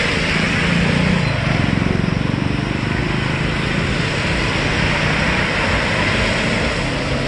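Steady hiss of heavy rain and water on a flooded road, with vehicle engines running low beneath it as traffic drives through the water.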